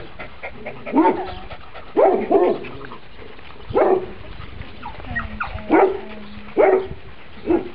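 A dog barking repeatedly: about seven sharp barks at uneven intervals of roughly a second.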